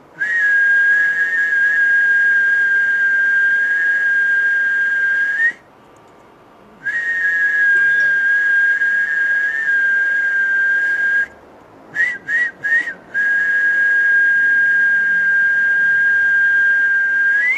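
Whistling as a sound-healing 'energy' transmission: three long, steady high notes of about four to five seconds each, with three short chirps just before the last note.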